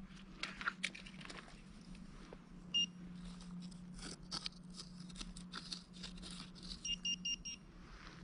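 Handheld metal-detecting pinpointer beeping in a dug hole: one short beep a few seconds in, then a quick run of about five beeps near the end, signalling metal close to its tip. The beeps come over scraping and clicking of soil being dug out by hand.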